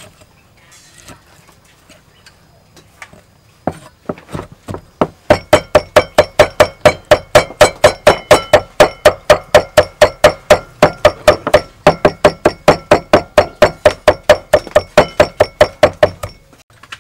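Steel cleaver chopping on a thick round wooden chopping block. A few scattered knocks come first, then from about five seconds in a fast, steady run of about four to five chops a second, each with a slight metallic ring, stopping about a second before the end.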